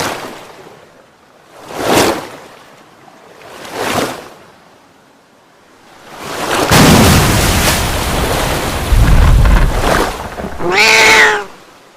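Sound effects: three swelling whooshes about two seconds apart, then a loud rumbling noise from about six seconds in. Near the end a short pitched call falls in pitch.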